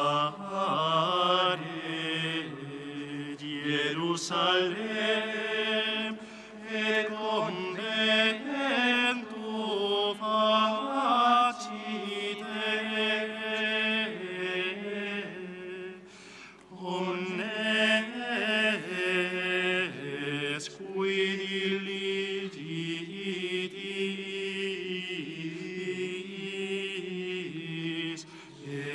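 Voices singing a slow liturgical chant in long held phrases, with a short break about halfway through.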